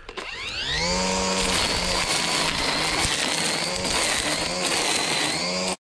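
Battery-powered string trimmer spinning up with a rising whine, then running steadily as it cuts long grass, its pitch wavering slightly under load. It stops abruptly near the end.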